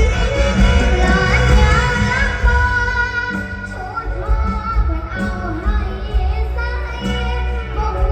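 A young girl singing a Thai mor lam song in a wavering, ornamented melody over backing music with a steady heavy bass beat.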